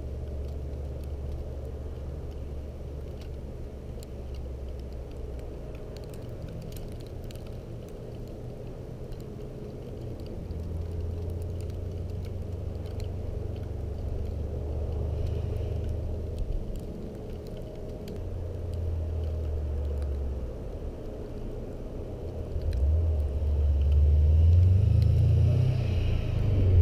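Stage 3-tuned 2020 Subaru WRX STI's turbocharged flat-four engine rumbling at a distance, its level rising and falling. In the last few seconds it revs up with a rising pitch and grows much louder as the car approaches.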